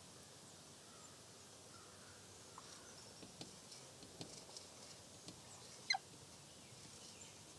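Dry-erase marker writing on a small whiteboard: faint scratches and light ticks over quiet background, with one short, high squeak falling in pitch about six seconds in.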